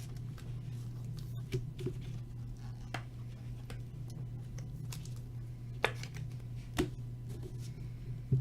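Baseball cards being handled and flipped through by hand: scattered soft clicks and flicks, about half a dozen, over a steady low hum.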